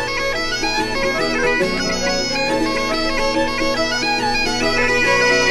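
Bagpipe music: a steady drone under a moving chanter melody.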